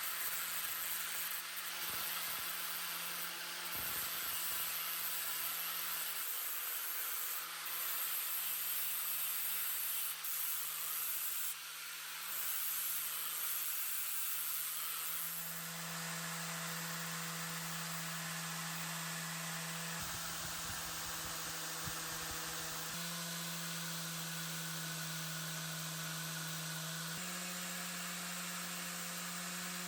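Electric grinder running steadily, with a hissing grind as the steel blade of an old iron axe is sharpened against the abrasive. The motor's hum steps up in pitch about halfway through, and twice more near the end.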